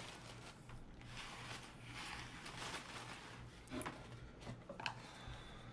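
Faint rustling and handling of a cardboard shipping box and its plastic packaging, with two short sharp sounds about two-thirds of the way in.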